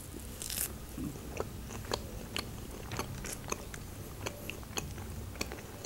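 Close-miked chewing of a piece of meat chop that she calls tough and rubbery: quiet mouth sounds with scattered small clicks.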